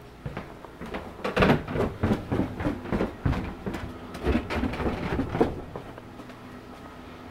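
Footsteps going down wooden stairs: an irregular run of thumps and knocks, two or three a second, that stops about six seconds in. A steady machine hum is left near the end.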